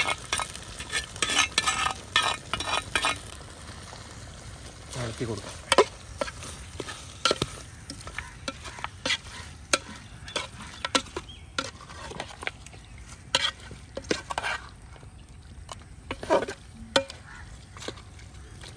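A spatula scraping and knocking in a pan as beef roast is stirred together with fried shallots, over a sizzle of frying. The strokes come thick and fast for the first three seconds, then in scattered bunches.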